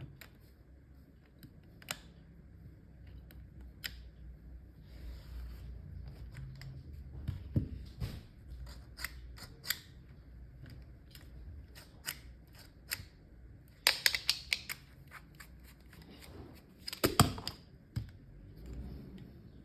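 Plastic parts of a 3D-printed mini tripod clicking and snapping as they are handled and adjusted. Scattered sharp clicks, with two busier flurries of clicking in the second half.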